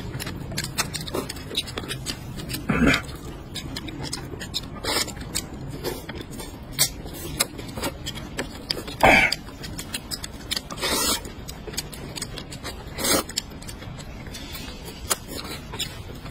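Eating sounds: noodles slurped in loud bursts every few seconds, with chewing and many small clicks and scrapes of chopsticks on plates and bowls.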